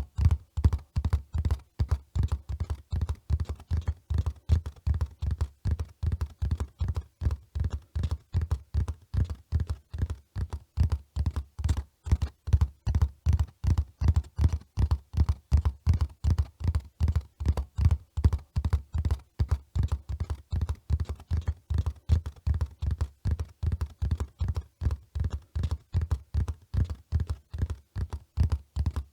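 Horse's hooves running in a steady, even rhythm of dull, heavy thuds on soft ground.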